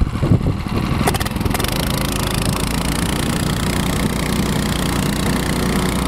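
Engine of a small tracked snow machine running steadily under way while towing a sled, with a few knocks in the first second and a half.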